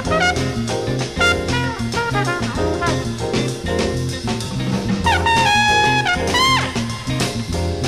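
Background jazz music with brass and a drum kit over a bouncing bass line. About five seconds in, a horn slides up into a long held high note, then bends back down.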